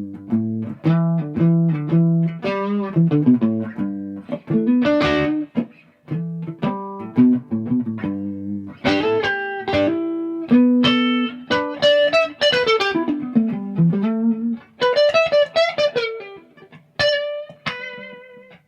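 Gibson Custom SG electric guitar played through an amp, not yet set up: single notes and chords, with a quick descending run in the middle and bent notes after it.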